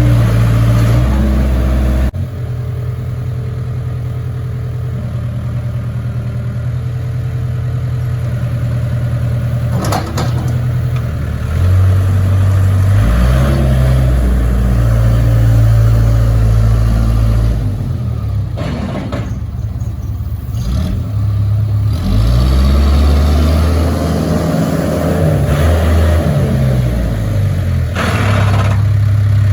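Case backhoe's diesel engine running, its low drone shifting up and down in speed again and again as the throttle is worked, with an abrupt change in the sound about two seconds in.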